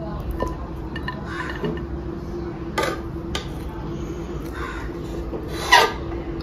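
Steel serving spoon scraping and scooping cooked biryani rice against the inside of an aluminium pressure cooker, in a series of short rasping strokes, the loudest just before the end. A steady low hum runs underneath.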